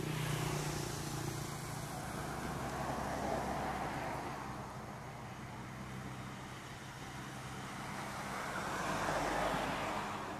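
Road traffic: vehicles passing, the noise swelling and fading three times over a steady low engine hum.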